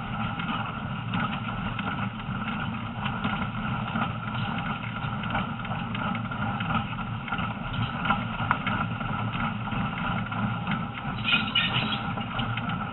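A train running along the track, heard from aboard: a steady rumble with irregular clicks and rattles from the wheels and carriage. A brief higher-pitched sound comes near the end.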